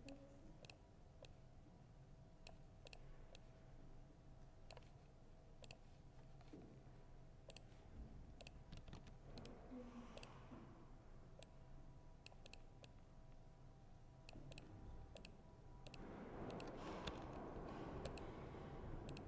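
Laptop keyboard typing: soft, irregular key clicks over faint room tone. About three seconds before the end, a faint wider background noise comes up under the clicks.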